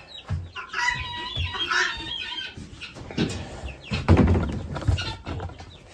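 Chicks peeping, with several knocks and thumps as panels are set over their enclosure; the loudest thump comes a little past halfway.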